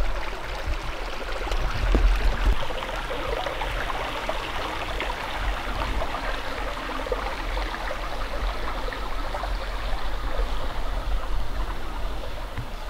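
Creek water running steadily over rocks, a continuous even rushing.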